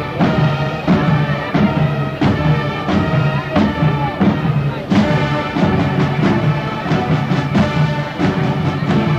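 High school marching band's brass and percussion playing in concert, sustained chords punctuated by heavy drum accents about three times every two seconds. The sound is a cassette-deck recording taken from the audience.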